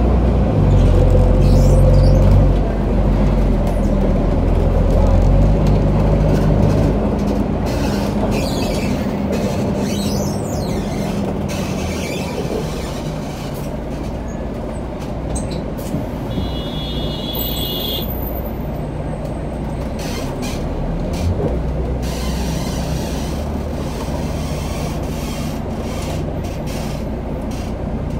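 Inside a moving city bus: the engine's low drone and road noise, heavier for the first few seconds and then steadier. A brief high squeal is heard about seventeen seconds in.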